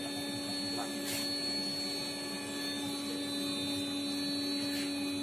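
3.5 kg Super Roaster drum coffee roaster running: a steady electric hum with one constant pitched tone over a soft machine drone. A light click about a second in.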